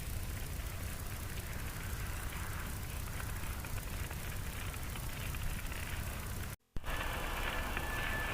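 Steady low rumbling outdoor background noise with a hiss above it. About six and a half seconds in it drops out to silence for a moment, then comes back as a brighter hiss with a faint steady high whistle.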